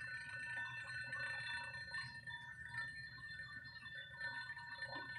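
Crystal glasses ringing on their own, without being struck: several steady high tones sounding together without a break, over faint scattered sounds.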